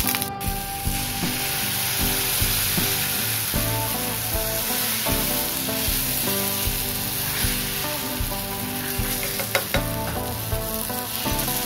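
Ragi dosa batter sizzling on a hot iron tawa as it is poured and spread in circles with a ladle. The hiss starts about half a second in and then holds steady.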